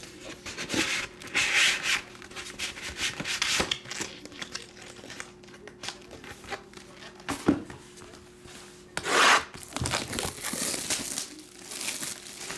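Trading cards and card packaging being handled: irregular rubbing and rustling with light taps, and louder swishes about one and a half seconds and nine seconds in.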